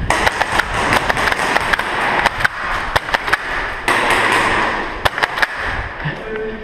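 Airsoft gunfire: many sharp snaps and clicks at irregular intervals over a rushing noise.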